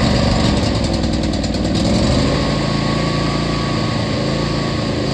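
John Deere D140 lawn tractor engine running steadily after catching, back to life after sitting four years, now with a cleaned carburetor, new spark plugs and new fuel filter.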